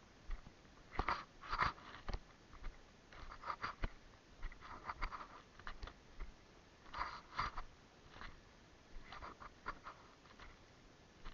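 Irregular rustling and crunching close to the microphone, coming in bursts every second or two, with a few sharp clicks.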